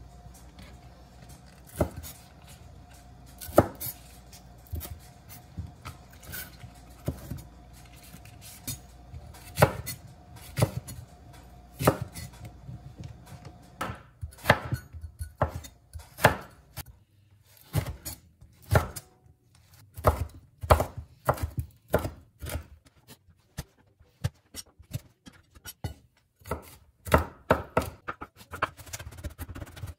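Chef's knife chopping chili peppers and garlic on a bamboo cutting board: scattered single cuts at first, then quicker runs of chopping from about halfway through.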